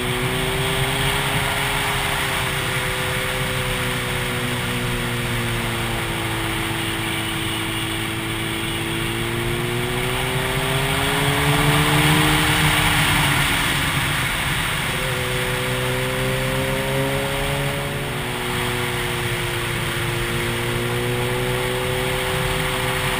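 Yamaha FZ1's inline-four engine running under way over steady wind rush. Its pitch slowly rises and falls with the throttle, climbing to its highest and loudest about halfway through, then dropping away briefly and coming back at a lower pitch.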